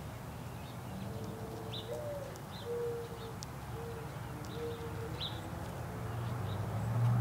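A mourning dove cooing its song: a long low coo, a coo that rises and falls, then three steady lower coos. A few short, high chip notes from a small bird are heard, over a low steady rumble that grows louder near the end.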